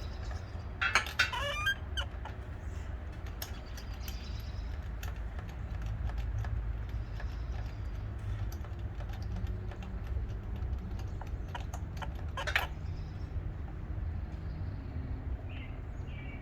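Spark plug being unscrewed from a four-stroke lawnmower engine: a brief squeak about a second in as the plug is worked loose, then a steady low rumble with faint ticks, and a single sharp click about twelve seconds in.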